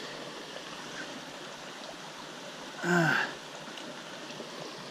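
Shallow stream water running steadily, with a man's short wordless exclamation, falling in pitch, about three seconds in.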